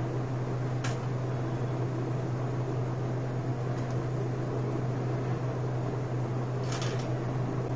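Hot air rework gun blowing steadily, a constant hum with a hiss, while it desolders a small ceramic capacitor from a circuit board. There are a couple of light clicks about a second in and near the end.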